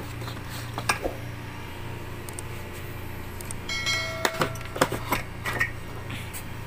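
A gas pressure regulator being handled and pressed back into its cardboard box insert: light knocks and clicks around a second in and again between four and five and a half seconds, with a brief squeak just before four seconds, over a steady low hum.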